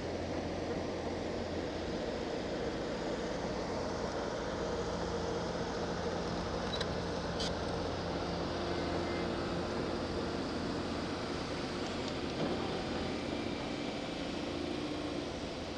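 Backhoe loader's engine running steadily, with a couple of faint clicks about halfway through.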